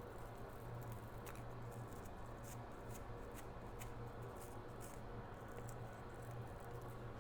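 Flux crackling in faint, irregular small ticks as it heats on an iPhone CPU on a preheater, over a steady low hum.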